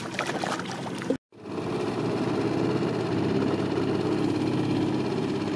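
A walleye splashing at the water's surface for about a second, then, after a sudden cut, a boat motor running steadily.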